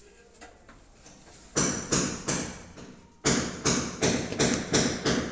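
Hammer blows: three sharp knocks about a second and a half in, then a quicker run of about eight, roughly four a second, from a little past three seconds.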